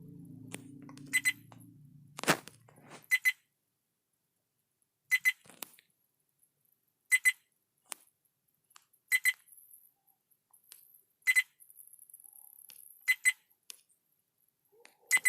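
Viofo A129 Duo dash camera beeping: a short, high double beep about every two seconds, which the owner puts down to no SD card being inserted. A single sharp click sounds about two seconds in, and a faint low hum fades out by about three seconds.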